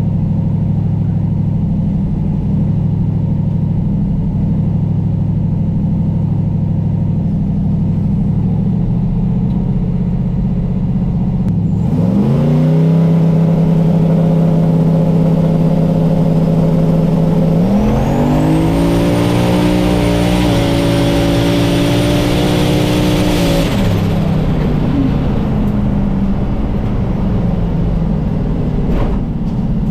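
Turbocharged LS V8 pickup engine, heard from inside the cab, going from a low rumble to full throttle about twelve seconds in. The revs climb and hold, then climb again about six seconds later with a high turbo whine rising over them. The engine drops back off throttle about 24 seconds in.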